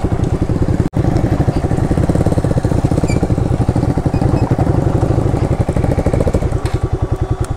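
Yamaha motorcycle engine running at low speed, a loud, even train of firing pulses, with an instant's break about a second in.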